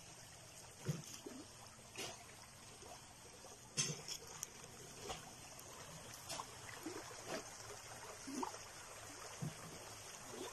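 Faint handling noise from a chunk of shell-studded rock being turned in the hand close to the phone: scattered soft clicks and knocks over a low hiss, with a few faint short squeaks.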